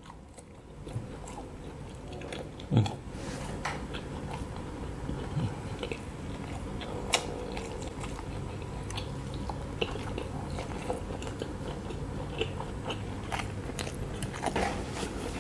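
Close-up eating: biting into and chewing a skewered Thai beef sausage, with many small sharp clicks through the chewing and a louder bite about three seconds in.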